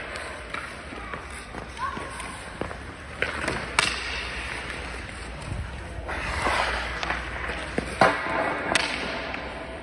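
Ice-hockey skate blades scraping on rink ice, with several sharp clacks of a hockey stick striking the ice, the loudest about eight seconds in.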